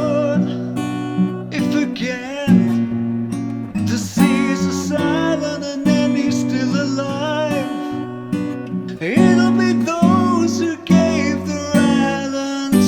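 Acoustic guitar strummed and picked in a song, with a voice singing long, wavering notes over it.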